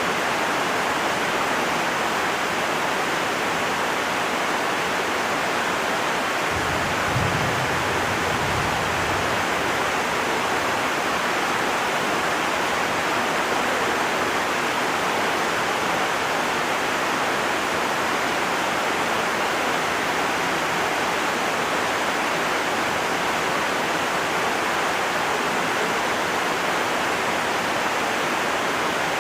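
Heavy rain pouring down in a steady, unbroken hiss. A brief low rumble sounds about seven seconds in.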